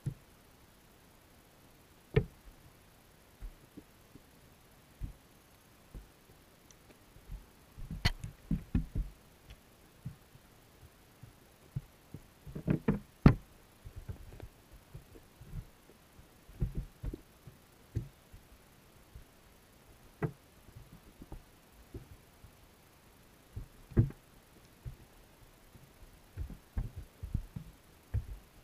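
Irregular dull knocks and taps, muffled through a GoPro's waterproof housing underwater, as rock bass and bluegill crowded in a wire minnow trap bump against the camera and the mesh. Louder clusters of knocks come about eight and thirteen seconds in, and again near the end.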